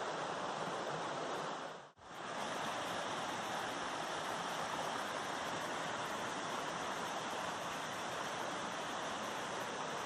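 Steady rushing of a small waterfall, water sheeting over a smooth rock slab. The sound drops out for a moment about two seconds in.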